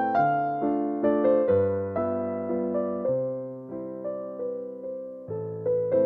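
Background piano music: a slow, gentle melody of single notes, each struck and then fading away.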